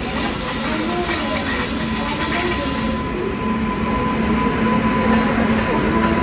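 Indian Railways goods train of petrol tank wagons rolling past, a loud steady noise of wheels on rail.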